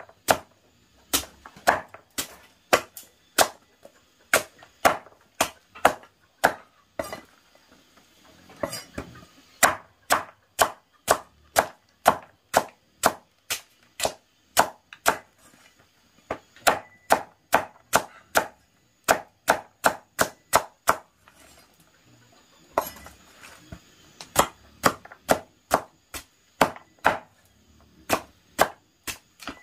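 Large knife chopping down through a pumpkin onto a wooden board, cutting it into slices: a steady run of sharp chops, about two a second, with a couple of short pauses.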